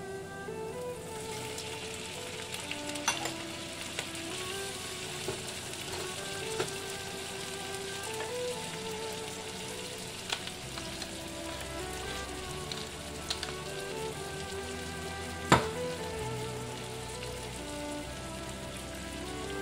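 Butter and garlic sizzling in a nonstick frying pan with whole shell-on shrimp frying in it, the sizzle growing louder about a second in. A few sharp knocks sound over it, the loudest about three-quarters of the way through, and background music plays under it all.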